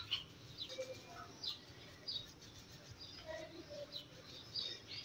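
Faint, scattered bird chirps over quiet room tone.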